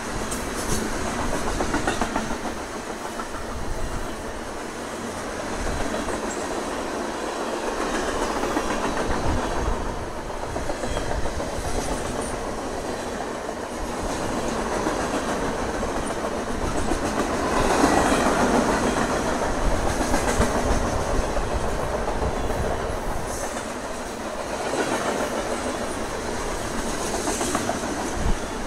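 Freight cars of a long mixed freight train (tank cars, covered hoppers and centerbeam lumber flatcars) rolling past close by: a steady rumble of steel wheels on rail with repeated clicking as the wheels cross the rail joints. It swells louder about two-thirds of the way through.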